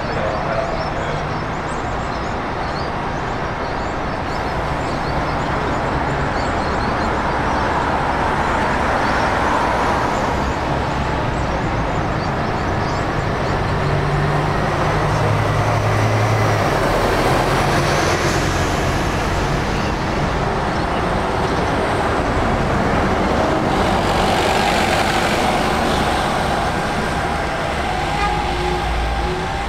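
Diesel shuttle buses driving past and pulling away, a steady mix of engine and road noise, with engine tones rising and fading as each bus goes by.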